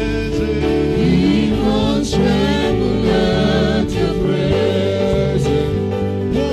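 Live gospel praise-and-worship music: a lead singer and backing vocalists singing over a sustained instrumental accompaniment with a steady bass.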